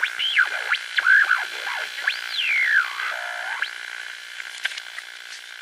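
Electronic synthesizer sounds: warbling pitch glides sweeping up and down over a steady high tone, thinning out over the last couple of seconds.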